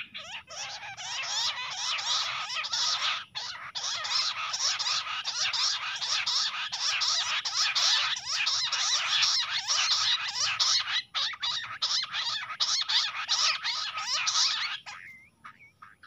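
Bush quails calling in a rapid, dense chorus of overlapping chirping notes that breaks off abruptly about a second before the end.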